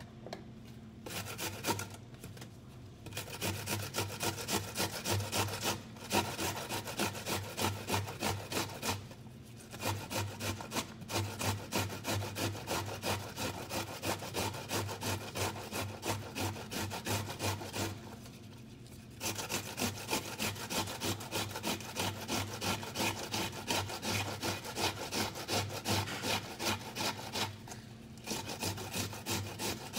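Vegetables shredded on a stainless steel box grater: quick, rhythmic rasping strokes, about two or three a second, in runs broken a few times by pauses of about a second.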